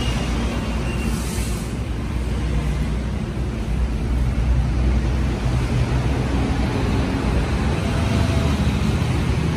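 Steady rumble of road traffic, motor vehicles running on a busy road, with a brief hiss about a second in.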